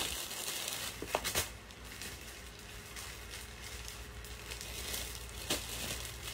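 Soft rustling of cloth as a striped blouse is pulled off over the head, with a few faint clicks about a second in and near the end.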